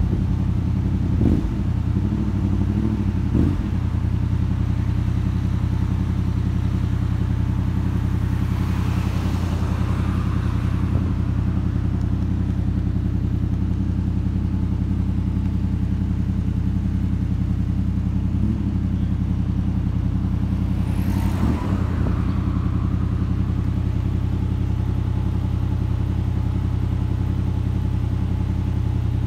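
Motorcycle engine running at a steady speed, heard from on the moving bike, with a couple of brief swells of passing noise about ten and twenty-one seconds in.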